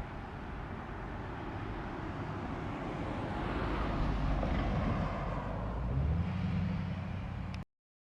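Outdoor vehicle noise with wind rumbling on the microphone, swelling about halfway through, with a low steady engine hum joining near the end before the sound cuts off abruptly.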